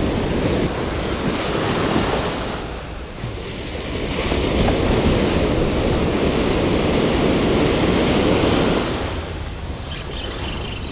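Ocean surf rushing in over the sand as a steady wash of foam. It dips about three seconds in, swells again and eases off near the end.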